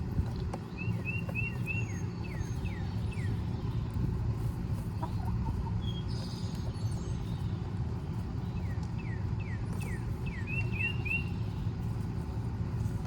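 A songbird singing two phrases of short, repeated down-slurred whistled notes, one near the start and one near the end, over a steady low rumble.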